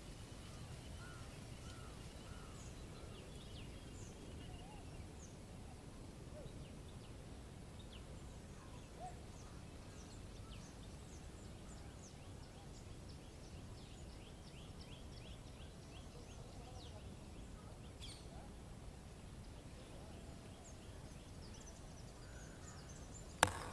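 Outdoor nature ambience: many faint birds chirping and calling over a steady low rumble, with one sharp click near the end.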